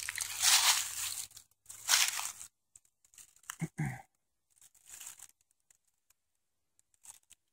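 Footsteps crunching through dry fallen leaves. There are two loud rustling steps in the first two and a half seconds, a softer shuffle about five seconds in, and then the walking stops.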